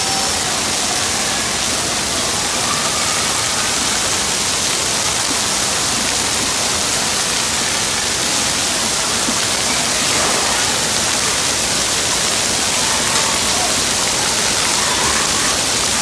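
Splash-pad water jets and overhead sprays pouring onto a wet floor: a loud, steady hiss of falling and splashing water.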